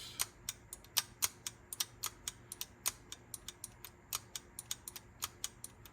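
Quick, irregular light clicks of small metal and plastic parts in a cassette deck's tape transport being worked by hand, several a second, with a faint steady hum that stops about five seconds in.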